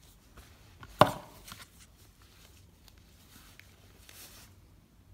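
A single sharp knock about a second in, followed by a few faint clicks and a brief soft rustle near the end, over quiet room tone.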